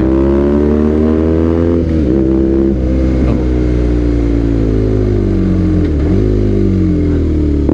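BMW R nineT boxer-twin engine breathing through a Villan aftermarket exhaust, accelerating on the road with the pitch climbing and dropping sharply at gear changes about two, three and six seconds in.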